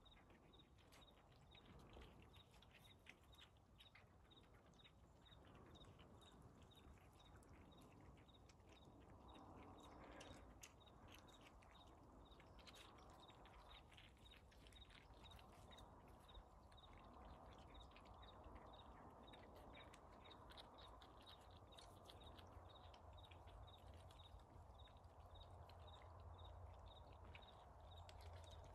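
Near silence: faint outdoor background with a faint, regular high ticking.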